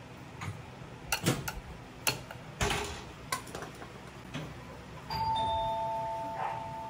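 Metal tongs clinking against a small ceramic dipping bowl as they stir a vinegar dip, a handful of sharp clinks in the first three seconds. About five seconds in, a two-note ding-dong chime sounds, a higher note then a lower one, ringing on for about two seconds.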